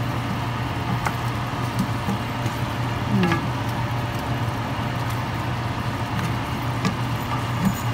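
Wooden spoon stirring pork spareribs through a simmering sauce in an enamelled cast-iron pan, with a faint sizzle and a few light knocks of the spoon. A steady low hum runs underneath.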